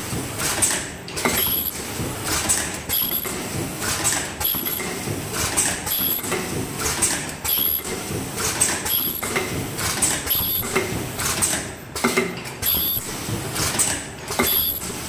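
Automatic ultrasonic mask ear-loop welding machine running through its cycle: a repeating set of pneumatic clacks and air hiss about every second and a half, each with a brief high-pitched tone, over a continuous mechanical rattle.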